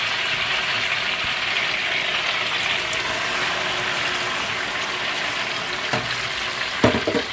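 Sliced onions and chopped tomatoes frying in hot vegetable oil in a big pot: a steady sizzling hiss. Two short knocks come near the end.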